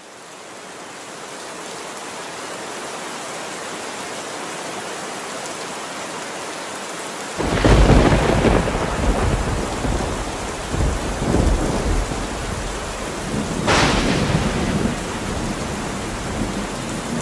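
Steady rain falling, then a sudden loud clap of thunder with a long rolling rumble about seven seconds in, and a second, sharper crack of thunder a few seconds later.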